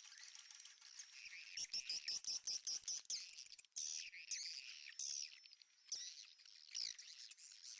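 Edible-nest swiftlets twittering: a fast run of high chirps mixed with rapid clicks about a second and a half in, then single chirps about once a second.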